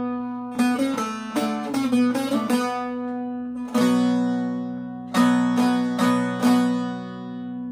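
Short-neck bağlama played with a plectrum. Quick runs of plucked notes give way to a few single strokes left to ring, and the last note sustains to the end.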